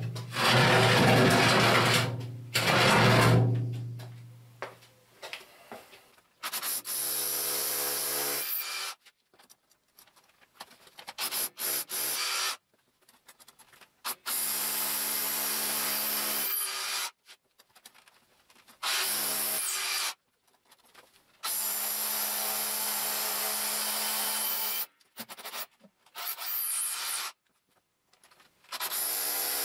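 Hammer drill boring anchor holes into a concrete floor, in bursts of a couple of seconds with short pauses between them. Music in the first few seconds fades out before the drilling starts.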